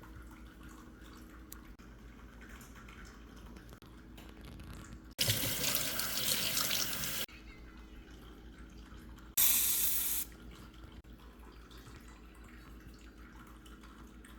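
Kitchen tap run twice into a sink: a stream of about two seconds, then a shorter one about two seconds later. Each starts and stops abruptly.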